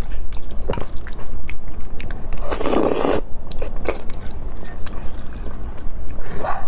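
Close-miked eating of spicy noodles: wooden chopsticks clicking and scraping on the plate and chewing, with one loud slurp of noodles about two and a half seconds in and another beginning at the very end.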